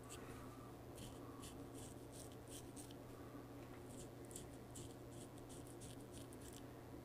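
Straight razor scraping through lather and stubble on the cheek and neck in short, quick strokes, a faint rasp about three times a second, over a steady low hum.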